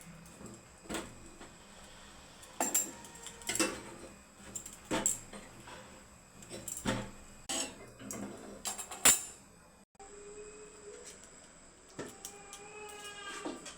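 Metal utensils and dishes clinking and knocking in irregular strikes. After a sudden break near the end, a fainter sound with a few held and falling pitched tones follows.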